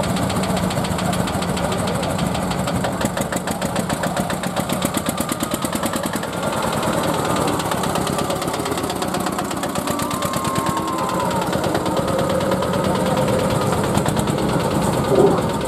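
Single-cylinder 15 PS tractor engine running steadily, with a fast regular train of firing beats.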